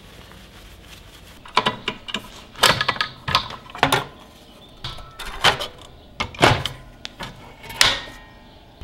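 A string of sharp clicks and knocks, starting about a second and a half in, as the aluminium rip fence of a Bosch GTM 12 JL combination saw is handled and fitted onto the saw's table top.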